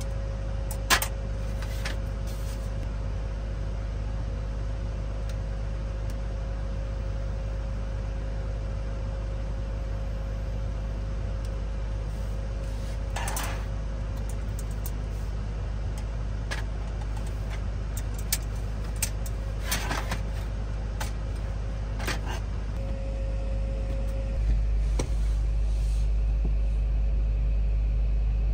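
A steady low mechanical hum that gets louder about 24 seconds in, with a few short clicks and knocks as a metal candle lantern is handled and relit with a lighter.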